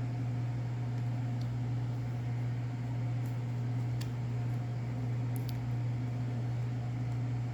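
A steady low electrical hum with faint room noise, and a few faint ticks.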